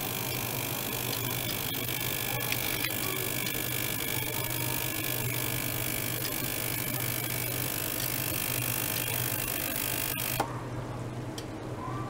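Ultrasonic cleaning tank with a small circulation pump running: a steady hum with a high hiss and faint whining tones. About ten seconds in a click sounds, the high hiss stops and the hum carries on.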